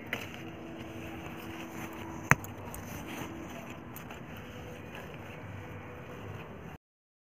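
Steady background noise with faint brief hums, broken by a single sharp click about two seconds in; the sound cuts out completely for a moment near the end.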